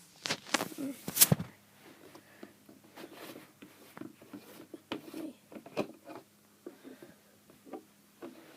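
Hand handling of small containers for the cricket feeding: a quick run of clicks and knocks in the first second and a half, then scattered light taps and rustles.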